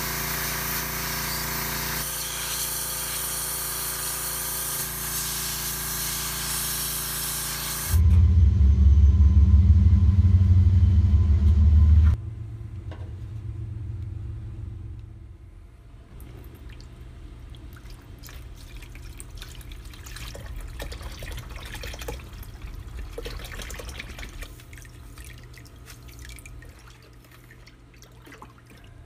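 Gas-engine pressure washer spraying a jet onto a metal popcorn-popper pan: a steady hiss over the engine's hum. About eight seconds in, a much louder low rumble takes over for about four seconds and stops abruptly. It is followed by quieter scattered clicks and light water sounds as the pan is handled and water is stirred in a plastic tub.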